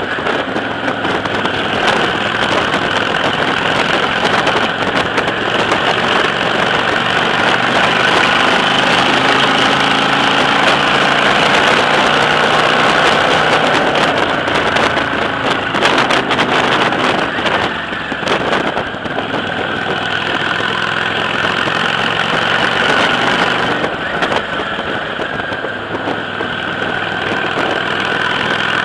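Motorcycle engine running at road speed with steady wind rush over the microphone, the engine note easing off briefly a couple of times.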